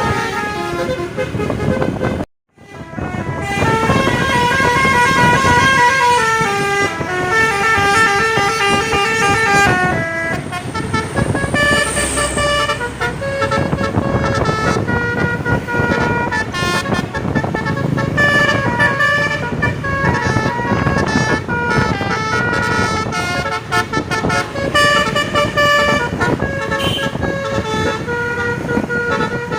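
Tour bus's multi-tone 'telolet' basuri horn playing melodic runs of stepped notes over the bus's engine noise, breaking off briefly about two seconds in.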